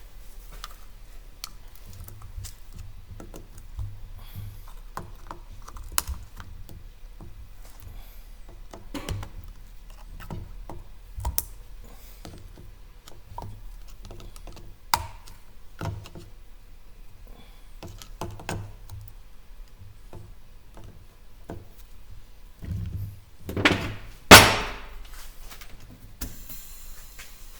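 Light clicks and knocks of parts and tools being handled while a truck air dryer is reassembled, with one loud knock with a short ring near the end, followed by a faint hiss.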